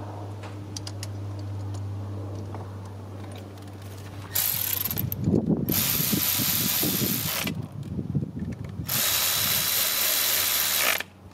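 Power ratchet running in three bursts of a second or two each, with short pauses between them, after a few seconds of steady low hum.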